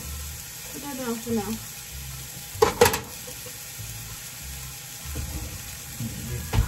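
A frying pan sizzling steadily. Two sharp knocks come close together a little under three seconds in and are the loudest sounds.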